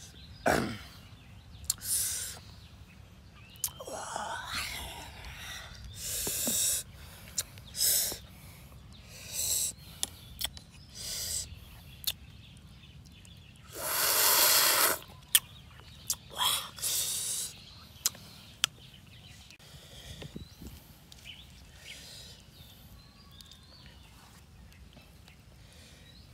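Eating sounds from a man eating green papaya salad with shrimp: short slurps, smacks and breathy mouth noises every second or two. About fourteen seconds in comes one longer, louder slurp from a spoon.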